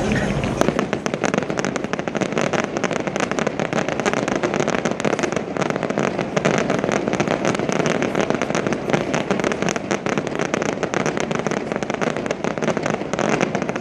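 Fireworks going off in a dense, continuous crackle of many small sharp pops, steady in loudness throughout.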